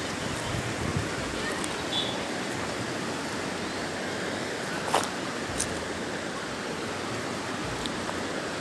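Steady rushing noise of flowing river water, with a few sharp clicks of pebbles knocking together, the loudest about five seconds in.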